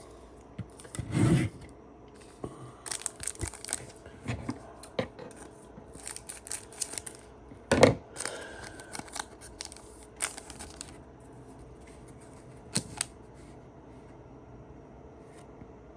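A trading card pack's foil wrapper rustling and tearing, with cards sliding and being handled. There is one sharp knock a little before the middle, and a couple of light taps later on.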